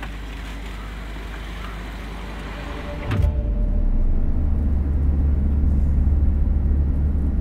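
Steady low rumble of a car driving, heard from inside the cabin. It starts abruptly with a click about three seconds in, after a stretch of quieter background noise.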